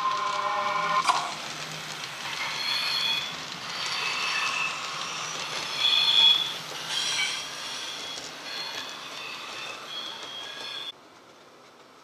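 Sound decoder of a model London Underground 1938 Stock train playing its electric train running sounds through the model's speaker as it passes: a steady whine for about the first second, then a string of short high-pitched tones over running noise. The sound cuts off abruptly near the end.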